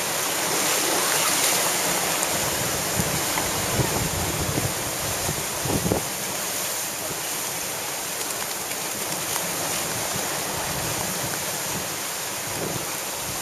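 Heavy surf from a hurricane swell, a steady dense rush of breaking waves, mixed with strong wind rumbling on the microphone.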